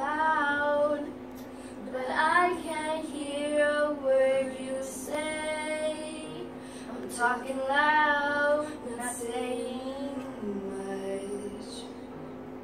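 A young girl singing a pop song's verse over a karaoke backing track, holding long notes that bend in pitch.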